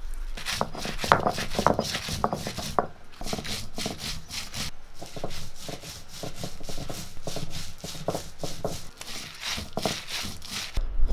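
A cylindrical stone roller crushing and grinding dried red chillies with salt on a flat grinding stone (ammikkallu), a quick, steady run of rubbing, crunching strokes, sharpest in the first few seconds while the whole chillies break up.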